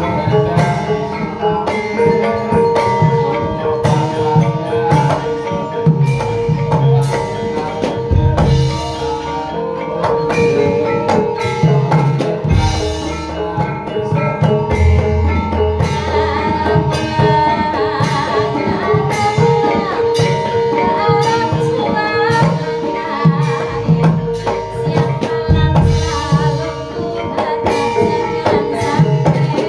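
Gamelan-style dance music: ringing mallet percussion over a steady beat of hand-drum strokes.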